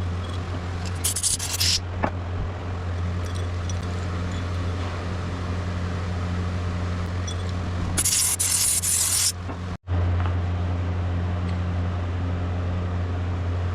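Two short hissing sprays, one about a second in and a longer one at about eight seconds, over a steady low hum in the workshop.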